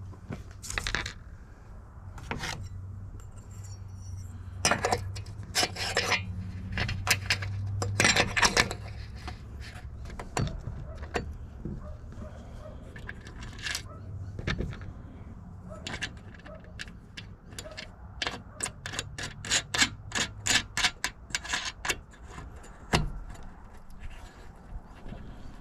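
Small metal hardware clicking and clinking as a nut and bolt are fitted by hand to an aluminium Z mounting bracket on a solar panel's frame. A quick run of light clicks comes about three-quarters of the way through.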